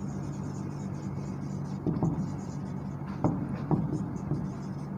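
Marker pen writing on a whiteboard, a few short strokes standing out, over a steady low hum.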